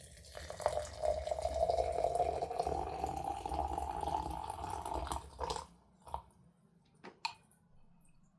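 Hot water being poured into a vessel in a continuous stream, its pitch rising slowly as the vessel fills, stopping about five and a half seconds in. A few light knocks follow near the end.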